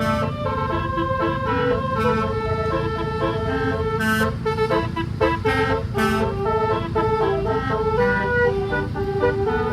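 Bus telolet horn playing a multi-note melody, its tones stepping from note to note, over the low rumble of the bus engine. Short hissing bursts come about four and six seconds in.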